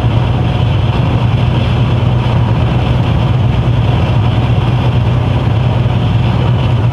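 Steady drone inside a Mercedes-Benz Actros truck cab cruising on the motorway: a constant low engine hum under even road and tyre noise.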